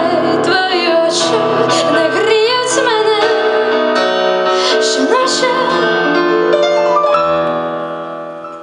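A woman singing live over piano-style keyboard accompaniment, her voice sliding between notes in drawn-out phrases. The music dies down near the end.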